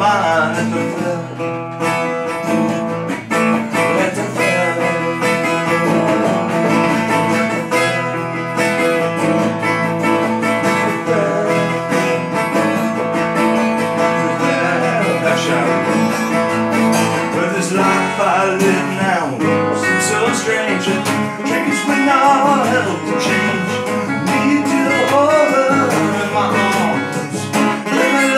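An acoustic guitar and a metal-bodied resonator guitar playing together, with a man singing.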